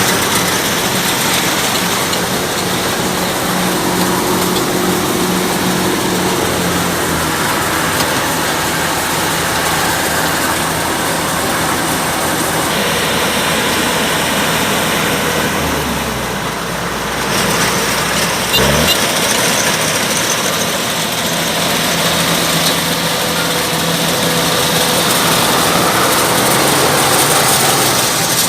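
Kubota DC-105X combine harvester running steadily, a continuous engine drone mixed with machinery noise. Around 16 seconds in the low drone shifts and dips briefly, followed by a short rising whine, before the steady running resumes.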